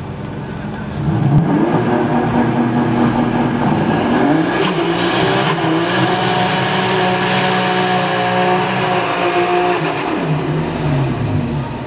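BMW E46 M3 doing a burnout: the engine revs up about a second in and holds high revs while the rear tyres spin and smoke. Revs drop back near the end.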